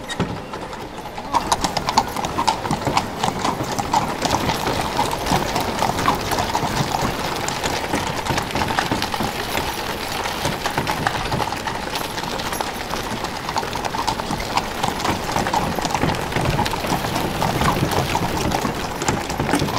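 Horses' hooves clip-clopping quickly on a cobbled street, a dense clatter of many hoofbeats that grows louder about a second in, as horse-drawn steam fire engines pass.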